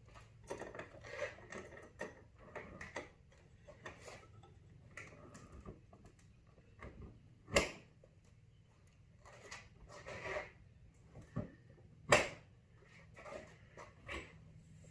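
Scattered clicks, rustling and knocks of gear being handled and packed into a small camper trailer, with two sharp knocks about seven and a half and twelve seconds in.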